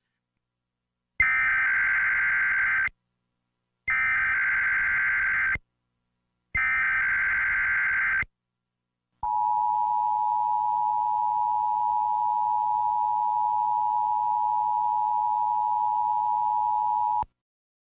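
Emergency Alert System tones for a severe thunderstorm warning. First come three identical bursts of SAME digital header data, each a warbling data sound under two seconds long, with short gaps between them. Then the EAS two-tone attention signal sounds, a steady dual tone held for about eight seconds.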